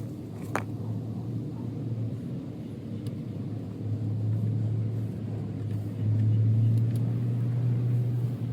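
A steady low motor hum that grows louder about four seconds in and again about six seconds in, with a light click shortly after the start.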